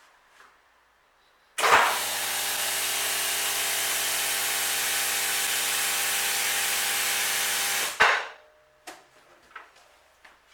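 Vehicle lift's electric motor running steadily for about six seconds while it raises the car, starting and cutting off abruptly.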